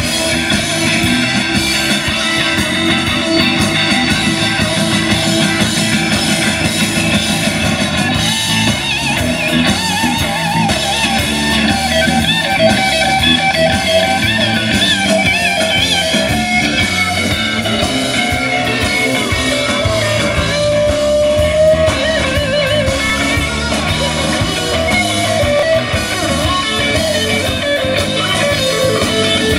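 A rock-and-roll band playing live in an instrumental stretch without singing: an electric guitar leads with wavering, bent notes over bass guitar and drum kit.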